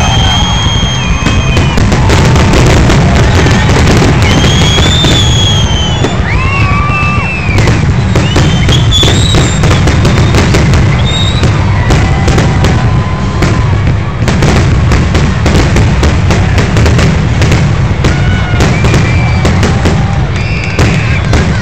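Fireworks finale: a rapid, continuous barrage of bangs and crackling over a heavy low rumble, with high tones that rise and fall over the top.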